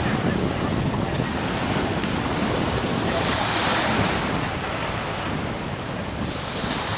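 Sea surf washing onto the beach, with wind buffeting the microphone; the wash swells briefly about three seconds in.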